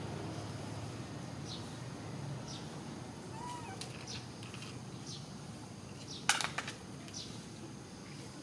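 Short high chirping animal calls, several spaced about a second apart, over low steady background noise, with a sharp cluster of clicks about six seconds in.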